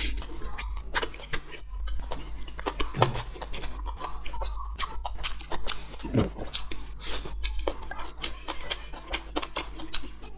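Close-up eating sounds: chewing with many quick, irregular wet mouth clicks and smacks, over a steady low hum.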